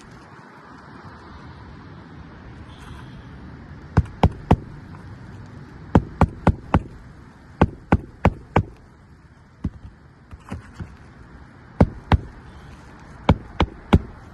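Hammer driving roofing nails into replacement asphalt shingles: sharp strikes in quick groups of two to four, one group per nail, starting about four seconds in, over a steady wind hiss.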